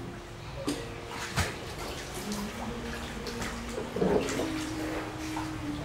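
Water sloshing and splashing in an inflatable paddling pool as a child moves about underwater, with a few sharp splashes and a louder flurry of splashing about four seconds in.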